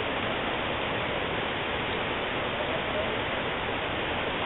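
Rushing mountain water in a gorge, a steady, even rush with no change.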